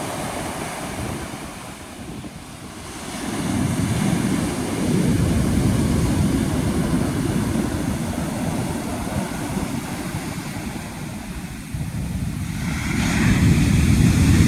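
Ocean surf breaking and washing up a beach: a steady rush that dips, swells louder a few seconds in, eases, then surges again to its loudest near the end.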